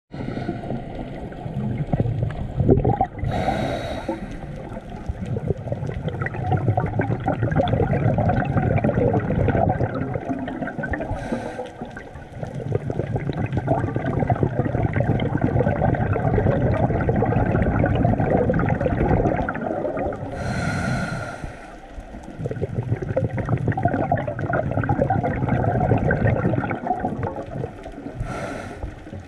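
A scuba diver breathing through a regulator underwater. Each breath is a short hiss on the inhale followed by a long bubbling rush on the exhale, with four inhales about eight seconds apart.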